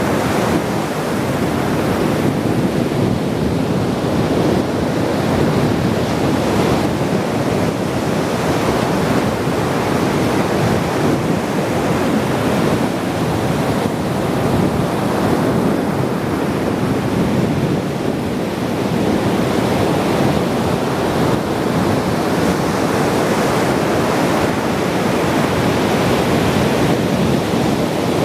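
Ocean surf: waves washing continuously onto the shore in a steady rush that swells and eases slowly, with some wind noise on the microphone.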